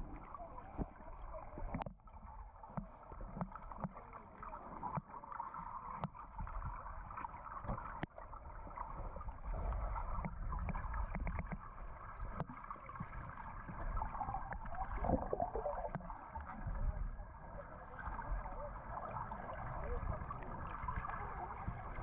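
Muffled underwater sound picked up by a camera held below the surface: a low rumble and gurgling wash of moving water, with a few sharp clicks.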